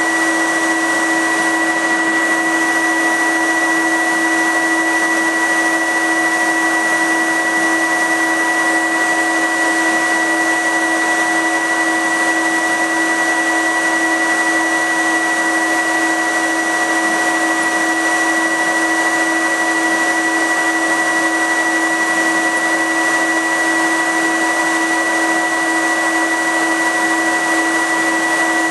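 Laser cutter's fume filter unit running, a loud, steady blower noise with several constant whining tones.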